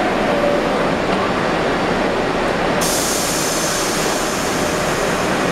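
R62A subway train standing at the platform with its doors closing, over a steady rumble of station noise. The last note of the door chime fades at the start. About three seconds in, a sharp, high hiss starts suddenly and holds.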